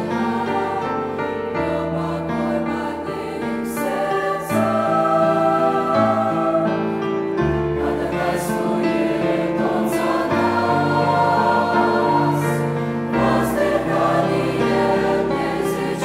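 Mixed choir of men's and women's voices singing a Russian-language hymn in sustained chords, the harmony shifting every couple of seconds over a steady bass line.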